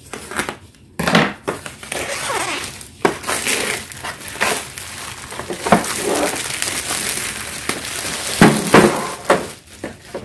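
Plastic wrap crinkling and rustling as it is cut with scissors and pulled off a bamboo cutlery tray, with a few sharp knocks as the wooden tray is handled.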